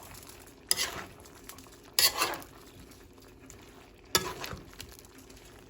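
A metal cooking utensil stirring vegetables in a pot, striking and scraping against the pot three times, each with a short ringing tail.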